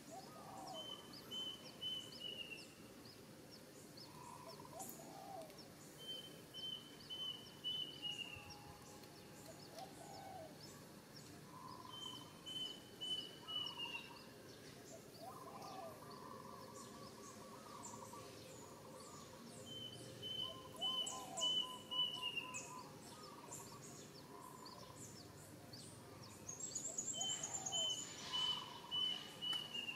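Birds calling outdoors. One bird repeats a phrase of about five quick high notes that drops slightly at its end, roughly every six to eight seconds. Lower calls and faint high chirps come in between.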